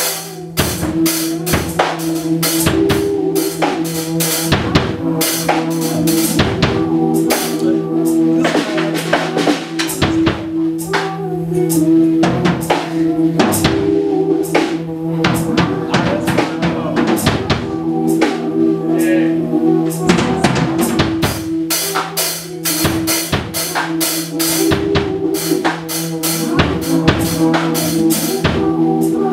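Drum kit played live, with a steady bass drum, snare and cymbal beat. Under it runs a looped layer of held low notes repeating in a pattern.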